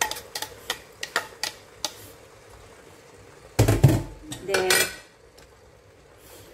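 Kitchen dishes and utensils clinking and knocking: a run of light sharp clicks, then a heavier knock and a short ringing clatter about three and a half to five seconds in.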